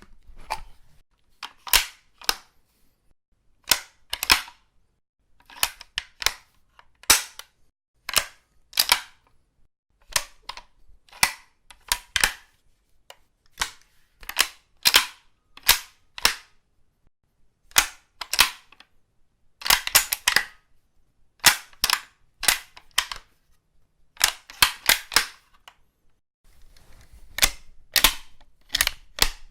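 A .303 rifle's action being worked, heard as a series of short, sharp clicks and clacks of the bolt and magazine. They come roughly one every second, some in quick groups of two or three.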